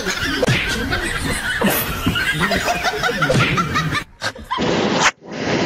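People laughing and giggling in quick, short peals for about four seconds. The sound then breaks off twice and gives way to a steady hiss.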